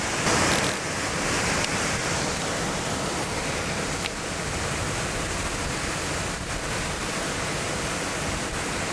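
Steady rushing of water pouring down a concrete spillway into a river, an even noise without pauses, with a brief louder swish about half a second in.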